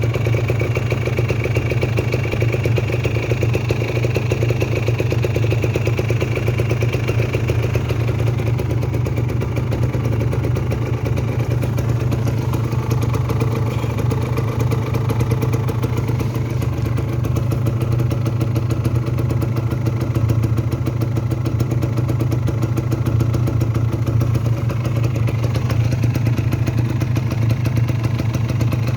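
Kawasaki Ninja RR 150's two-stroke single-cylinder engine idling steadily, with no revving.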